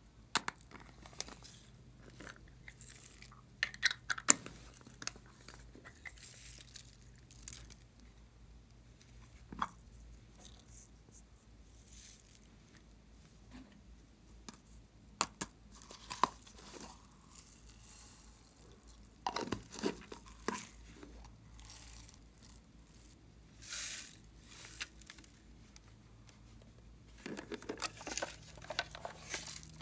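Small plastic slime containers being handled and opened: scattered sharp clicks and taps of plastic, with short rustling bursts and a cluster of clicks near the end.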